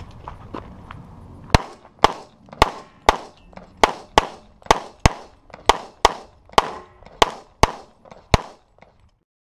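A string of about fourteen handgun shots, fired steadily at roughly two a second, beginning about a second and a half in; the sound cuts off about 9 seconds in.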